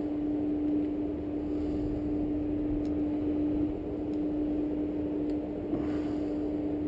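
Steady low machine hum with a low background rumble, and a few faint light ticks.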